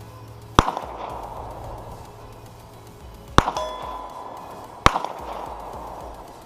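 Three gunshots fired one at a time, spaced unevenly a few seconds apart, each with a short echoing tail; the second is followed by a brief ringing tone.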